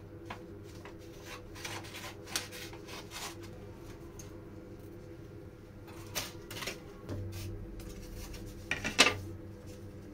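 Scissors snipping through a paper template in a series of short, sharp clicks, with paper rustling and handling sounds, over a steady low hum. A louder clatter comes about nine seconds in.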